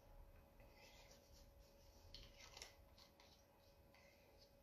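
Near silence, with a few faint scratchy strokes of a paintbrush working on paper.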